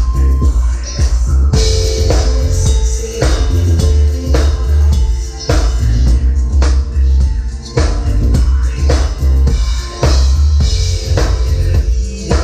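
A band playing: a drum kit keeps a steady beat over heavy bass, with held instrument notes above it.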